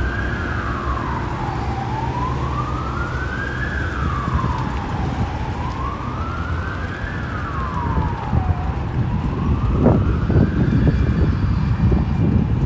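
Emergency vehicle siren sounding a slow wail: the pitch climbs for about two seconds and drops for about one, repeating some four times. A rough rumbling noise underneath grows louder over the last few seconds.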